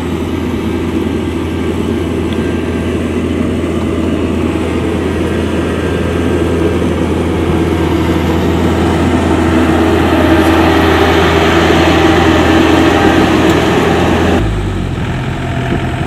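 Yanmar AW70GV combine harvester's diesel engine running steadily, swelling a little louder late on. Near the end its sound changes abruptly and drops to a quieter, lower run.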